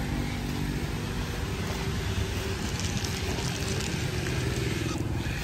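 Steady open-air street market background noise with a low, even motor hum underneath.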